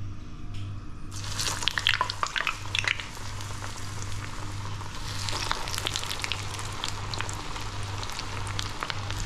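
Crumbed jalapeno poppers going into hot oil in a saucepan: the oil starts sizzling and crackling about a second in, loudest for the first couple of seconds, then settles into a steady deep-frying sizzle.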